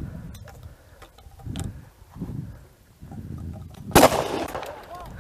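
A single loud shotgun shot about four seconds in, with a short echoing tail. Before it, low wind rumble and movement noise on the microphone.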